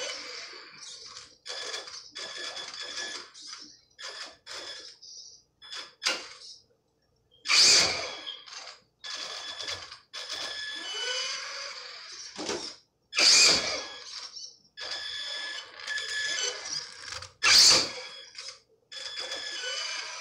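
HPI RS4 rally RC car's electric motor and gears whining in short bursts as the throttle is pulsed, with the tyres scrubbing on a tiled floor. Three louder, sharper noises break in, about a third of the way, two-thirds of the way and near the end.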